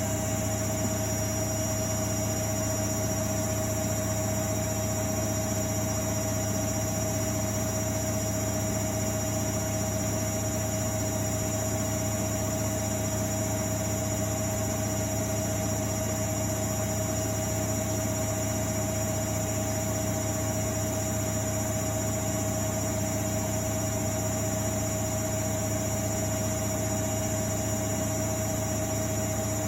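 Miele Novotronic W828 front-loading washing machine spinning at a steady high speed, a constant motor whine over a low hum with no change in pitch.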